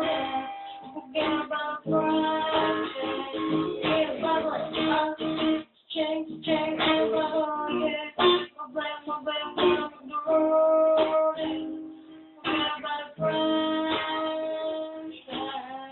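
Acoustic guitar accompaniment with a female voice singing long held notes without clear words, the outro of a pop song cover.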